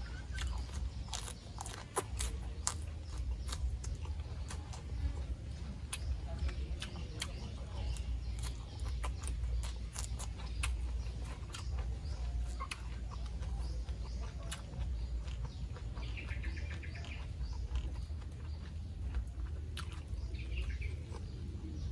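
Close-up chewing of a mouthful of raw leafy greens, with many crisp crunches and mouth clicks over a steady low background rumble. A bird twitters briefly about three-quarters of the way through.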